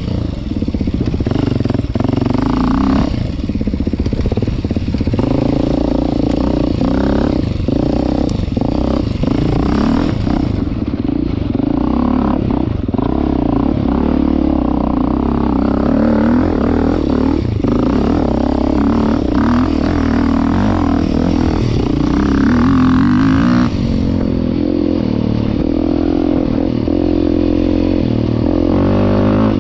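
2023 Beta 390 Race Edition's single-cylinder four-stroke engine running hard as the bike is ridden off-road, revs rising and falling, with frequent short knocks.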